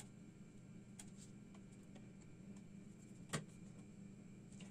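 Faint clicks and taps of the graphics card cooler's metal frame and parts being handled and fitted together, with one sharper click a little over three seconds in, over a low steady hum.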